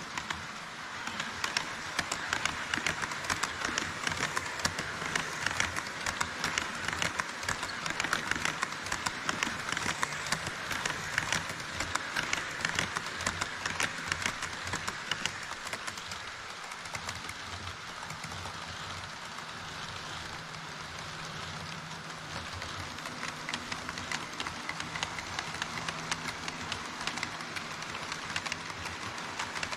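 HO-scale model trains running over a truss bridge on KATO Unitrack: a dense, rapid clicking and rattling of small metal wheels over the rail joints, loudest in the first half. An E5 series Shinkansen model passes, then a freight train of Taki 43000 tank cars, with a low steady motor hum in the second half.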